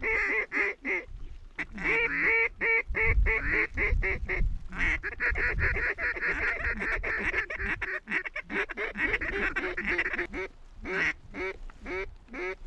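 Rapid, loud mallard-style quacking and chattering, a fast run of short calls that pauses briefly a few times and thins to separate calls near the end.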